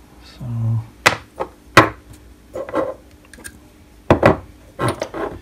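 Knocks and clunks of a machined aluminium motor plate and its geared motor being handled and fitted together on a wooden bench: a handful of sharp separate knocks.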